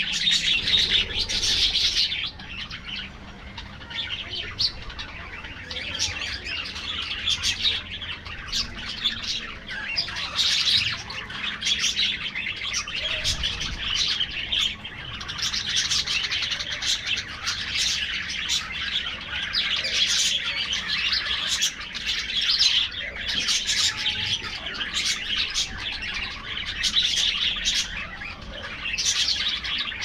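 A flock of budgerigars chattering: a dense, unbroken stream of high chirps and warbles from many birds at once, swelling and easing every few seconds.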